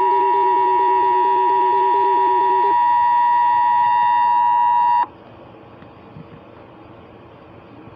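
Emergency Alert System attention signal, a loud, steady two-tone alarm sounding over a lower warbling tone that stops about three seconds in. The alert tone cuts off abruptly about five seconds in, leaving faint hiss.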